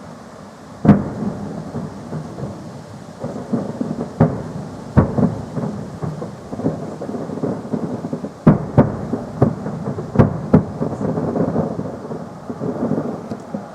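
Fireworks salute shells bursting in the sky: a series of sharp booms, the loudest about a second in, with smaller pops and a rolling, echoing rumble between them.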